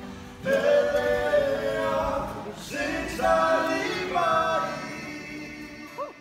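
Choir singing a cappella in harmony, several voices holding sung phrases, fading out near the end.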